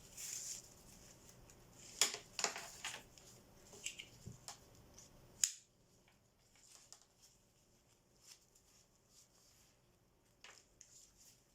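Faint rustling and light clicks of a fabric waist bag being handled, with one sharp click about five and a half seconds in, then only a few soft ticks.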